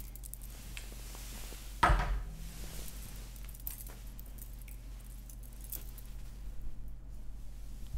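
Light handling noises close to the microphone: scattered small clicks and clinks, with one louder short sound that falls in pitch about two seconds in.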